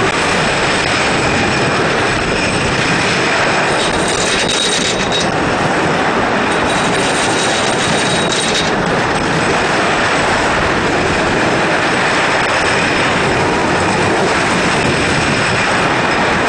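Wooden roller coaster train with Timberliner cars running at speed over its wooden track: a loud, steady rush of air and wheel rumble, with a thin high squeal from the wheels twice around the middle.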